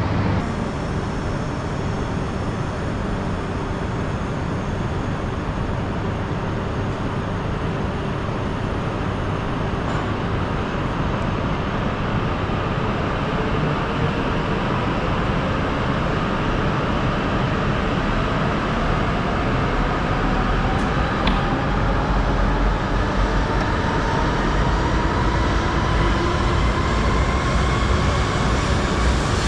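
Shinkansen train running with a steady rumble. From about two-thirds of the way in, its electric motor whine rises in pitch as the train gathers speed.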